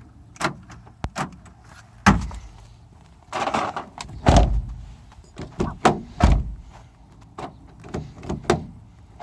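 The new driver's-door lock actuator of a 2010 Nissan Cube is working the lock back and forth as it is tested, a series of sharp, irregularly spaced clunks and clicks; the loudest come about two, four and six seconds in. The lock now works again after the failed actuator was replaced.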